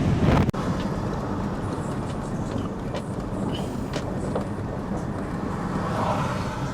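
Wind buffeting the microphone for the first half second, cut off abruptly, then a steady low rumble of heavy storm surf and wind.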